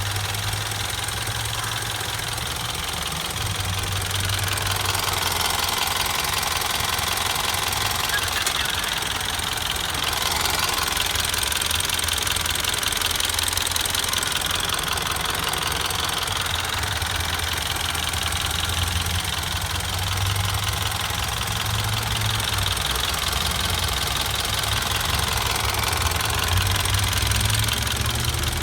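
2015 Mitsubishi Outlander's 2.4-litre four-cylinder engine idling, with its fuel injectors ticking rapidly and steadily over the low engine hum.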